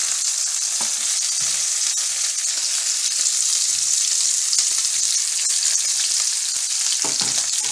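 Strips of bitter melon and bacon sizzling steadily in a hot frying pan, with a spatula scraping through them now and then.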